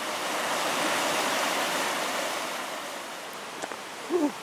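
Fast-flowing stream rushing in white water over boulders, swelling and then fading away after about three seconds. A short pitched sound comes near the end.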